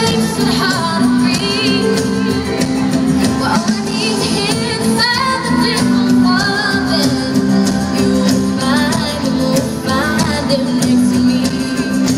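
A live pop band playing, with a female lead singer over drum kit, electric guitars and keyboard.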